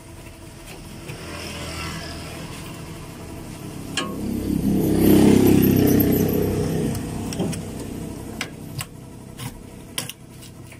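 A motor vehicle passing by, its engine and road noise swelling to a peak about halfway through and fading away, with a few light metallic clicks of a hand tool.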